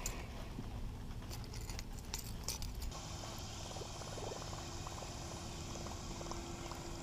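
Shallow, fast river current running past a kayak: a low steady wash of water, with a few light ticks in the first three seconds and a faint steady hum from about three seconds in.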